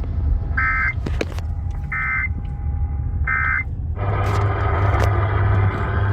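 Three short bursts of EAS SAME digital data tones, the end-of-message code that closes a NOAA Weather Radio severe thunderstorm warning, heard through a radio receiver over a low hum. About four seconds in, a loud hiss of radio static takes over.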